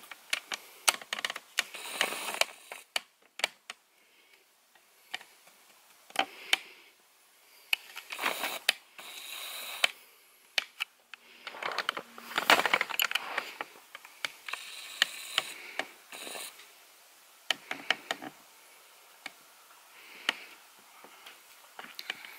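Close handling noise: irregular sharp clicks and light rustling, with denser clusters of clicks about two seconds in, around eight to nine seconds and near the middle.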